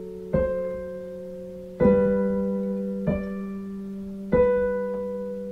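Digital piano played slowly with both hands: four chords struck about a second and a half apart, each left to ring and fade before the next.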